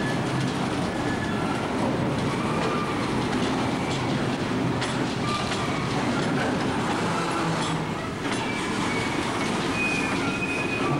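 Freight train cars rolling past on steel rails: a steady rumble of wheels with several brief high-pitched wheel squeals and occasional sharp clicks, for example a little before 5 seconds and around 8 seconds in.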